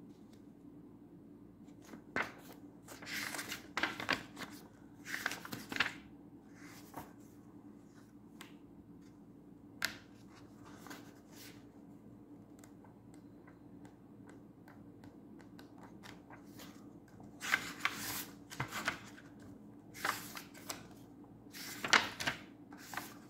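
Paper pages of a thick illustrated children's Bible being turned by hand, in bursts of rustling and page flicks with pauses between, over a faint steady hum.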